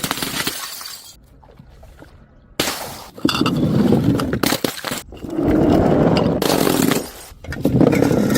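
Glass bottles breaking and shattering, with crunching glass, in several separate bouts. A breakage fades out in the first second, then after a short pause new breaks start suddenly at about 2.6 s, 3.2 s, 5 s and 7.5 s.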